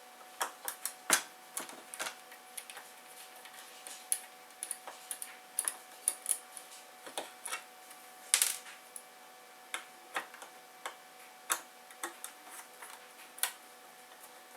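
Irregular small clicks and taps of hand work on a car's plastic instrument cluster: a screwdriver and fingers on small screws and gauge parts, with a few louder knocks about a second in and past the middle. A faint steady hum lies underneath.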